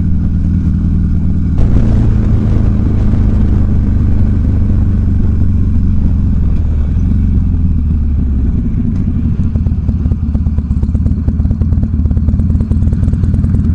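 Motorcycle engine running under way, heard from on the bike. Its note rises as the throttle opens about a second and a half in, holds steady, then eases back after about eight seconds.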